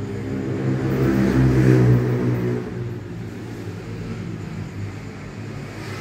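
A motor vehicle's engine passing close by, growing louder to a peak about two seconds in, then easing off to a lower steady running sound.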